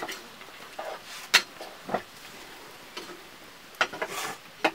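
Metal spoon stirring a cooking pot over a wood fire: a handful of separate clicks and knocks of metal on metal, several close together near the end.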